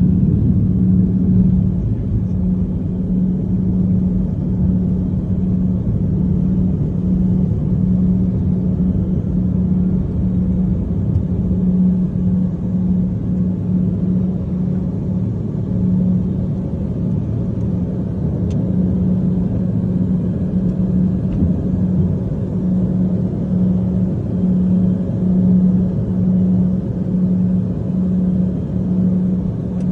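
Piper Cheyenne's twin turboprop engines and propellers at takeoff power, heard from inside the cabin: a loud, steady low drone that swells and fades in a slow beat, with a rumble beneath, through the takeoff roll and climb-out.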